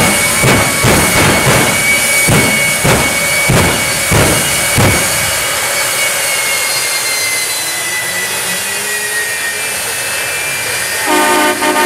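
Jet engine of a jet-powered semi truck running at the start line, a high turbine whine that slowly falls in pitch, with a series of regular thumps over the first five seconds. Near the end a loud multi-tone air horn starts blaring.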